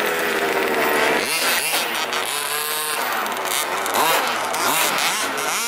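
Radio-controlled cars' motors revving, rising and falling in pitch several times.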